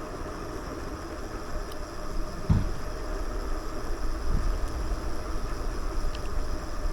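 Steady low rumble of wind on the microphone and tyres rolling on the road while riding a bicycle, with a dull bump about two and a half seconds in.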